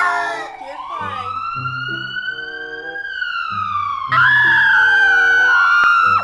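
Siren sound effect wailing, rising slowly for about two seconds and then falling slowly, over background music. About four seconds in, a louder wavering high-pitched cry joins it and cuts off at the end.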